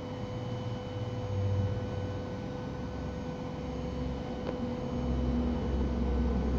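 Milling spindle on a KUKA robot arm running with a steady whine at one pitch, over a low machine hum that grows louder about five seconds in. A faint click comes just before that.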